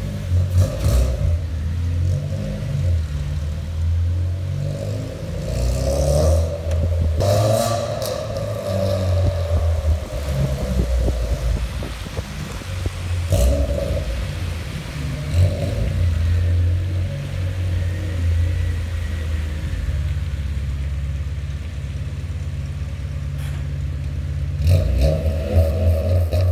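Honda Civic Si's K20 four-cylinder engine driving through a loud aftermarket exhaust, revving and accelerating several times, with the engine note rising and falling.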